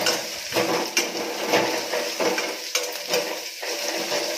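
Slotted metal spatula scraping and stirring sliced bitter gourd and onions in a metal kadhai, with a steady sizzle of frying in oil underneath. The scrapes come about twice a second.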